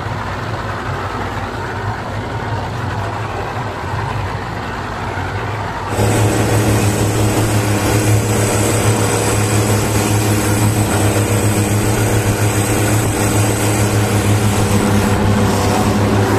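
Speedboat engine running steadily with wind and water noise. About six seconds in, the sound steps up suddenly to a louder, steady engine drone with water rushing past the hull as the boat runs at speed.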